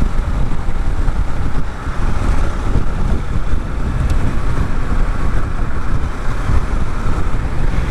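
Steady wind rumble over the microphone while riding a 2023 Kawasaki Ninja 650 at road speed, with the bike's parallel-twin engine running underneath.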